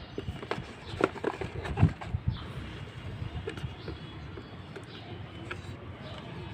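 Handling noise: a quick run of clicks and taps, loudest in the first two seconds, then fewer, lighter ticks over a steady low background.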